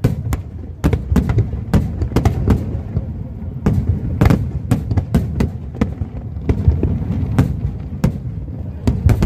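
Fireworks display: a rapid, irregular series of sharp bangs and crackles, several a second, over a continuous low rumble.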